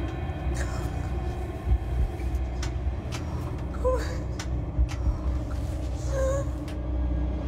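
A low, steady rumbling drone, with two brief high squeaks about four and six seconds in.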